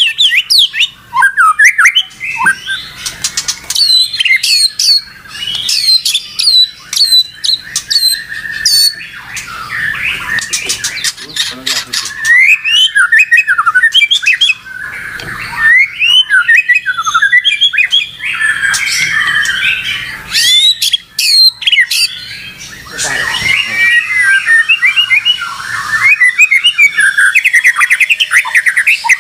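White-rumped shama singing a long, varied song: runs of sharp repeated whistled notes, then changing phrases and fast chattering trills.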